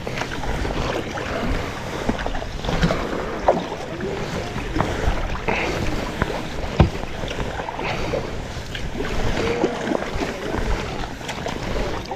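Sea kayak being paddled: paddle blades dipping and splashing, water lapping at the hull, with a few sharp knocks and wind on the microphone.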